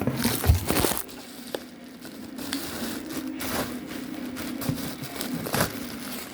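Packaging being handled and unwrapped: irregular crinkling and rustling with scattered clicks and knocks, over a steady low hum.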